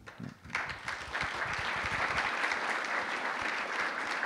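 Audience applauding at the close of a talk: many hands clapping together, starting about half a second in and holding steady.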